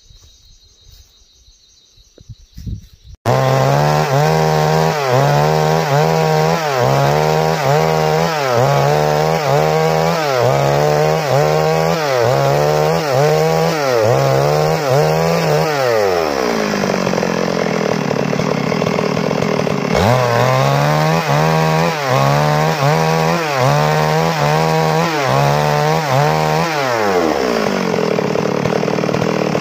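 Gasoline chainsaw ripping a squared log lengthwise into planks, starting abruptly about three seconds in. Its engine pitch rises and dips about once a second as the chain bites along the grain. The engine drops off about halfway through, picks up again, and drops off once more near the end.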